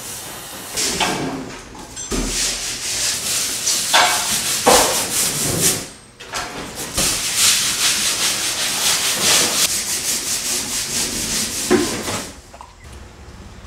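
Cider-mill machinery running, with a loud rhythmic scraping and rattling that breaks off briefly about halfway through.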